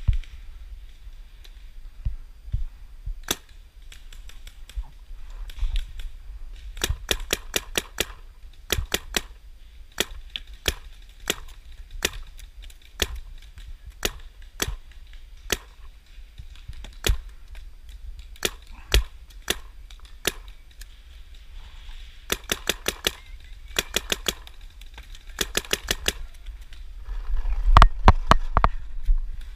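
Paintball markers firing: scattered single pops and quick strings of five to eight shots at about five a second. Near the end, a louder rumble of camera and gear handling.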